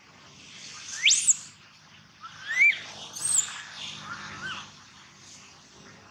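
Infant long-tailed macaque crying: short, very high-pitched squeals that sweep sharply up in pitch, the loudest about a second in, then a few more over the next three seconds, the last ones fainter.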